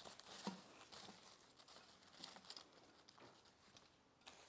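Near silence with faint rustling and a few soft taps as artificial flower stems and leaves are handled and pushed into a vase.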